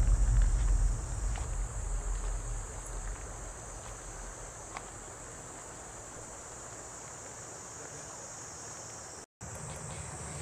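Steady chorus of crickets chirring, with a low rumble fading out over the first few seconds.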